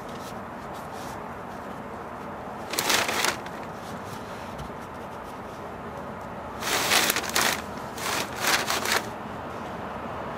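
Gloved hands rubbing and smoothing automotive carpet over a truck cab floor: a short scuffing, rustling pass about three seconds in, then two more a few seconds later, over a steady low hiss.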